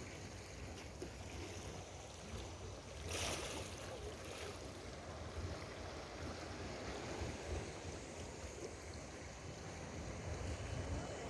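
Sea waves washing against a breakwater with wind buffeting the microphone, and a louder surge of water about three seconds in.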